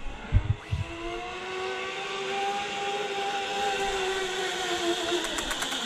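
Zipline trolley pulleys running along the steel cable as a rider goes down the line, after a few low thumps at the launch. It is a steady whine that rises a little in pitch, then falls away near the end.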